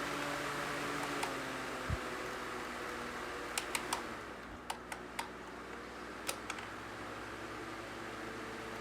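Holmes Blizzard oscillating table fan running and winding down from high to low speed, its steady whoosh of air and motor hum easing off. Several light clicks come in the middle, three in quick succession and then a few more.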